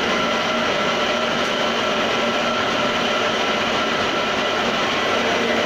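Homemade tofu-straining machine running steadily: an even motor hum and whir with a few faint held tones, unchanging throughout.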